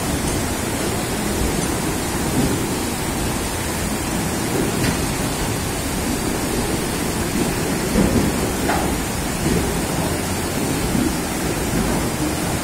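Slow freight train's wagons rolling through floodwater over the tracks: a steady rushing and sloshing of churned water with a low rumble underneath.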